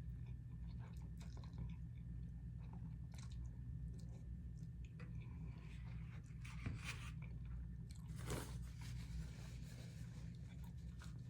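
A person eating close to the microphone: chewing and biting crunchy food, with scattered short crunches and a couple of louder ones in the second half, over a steady low hum.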